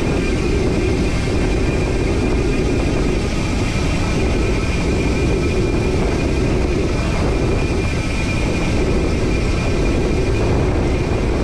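Steady wind and road noise on a GoPro Hero 9's built-in microphone while riding a bicycle, heaviest in the low end and without pause.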